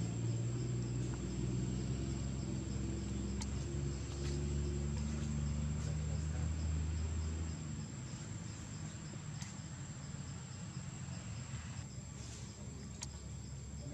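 Forest insects whining steadily at a high pitch, with a faint pulsing chirp underneath. A low steady hum runs through the first half and cuts off about halfway through, and a few brief clicks stand out.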